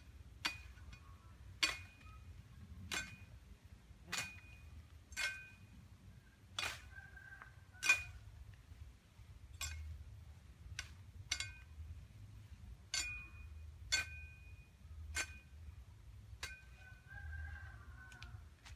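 Machete chopping at a thin bamboo stem: sharp cuts about one a second, each with a short metallic ring from the blade.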